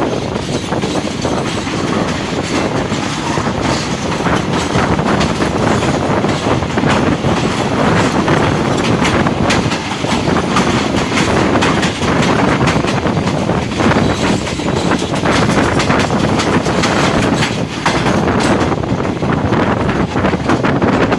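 Passenger train running at speed: a steady rumble of coach wheels on the track, with irregular clicking and clatter over rail joints and points.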